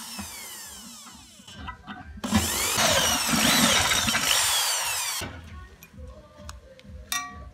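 Electric hand drill boring through a thin steel plate. The motor runs hard from about two seconds in and stops about five seconds in, followed by light clicks.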